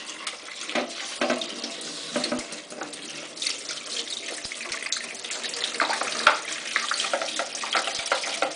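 Hot water running from a tap onto a washing machine's removed detergent drawer, splashing unevenly with small knocks as the drawer is rinsed in the sink.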